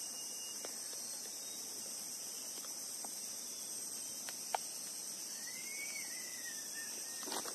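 Steady, high-pitched chorus of insects, with a few light clicks and one sharper snap about halfway through from twigs cracking underfoot. A short whistle rises and falls about two-thirds of the way in, and a crackle of breaking twigs starts just at the end.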